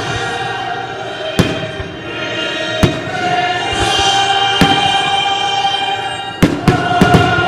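Amplified live orchestra playing sustained music, cut by sharp firework bangs every second or two, with four bangs in quick succession near the end.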